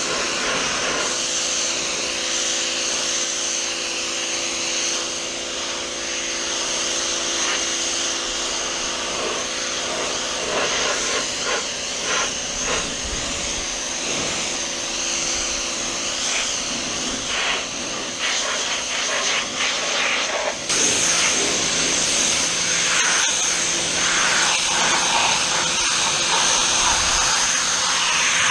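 PowerWorks 2000 PSI electric pressure washer running, its motor and pump humming steadily under the hiss of the high-pressure water jet spraying a surface. About 21 s in, the spray hiss gets louder and sharper.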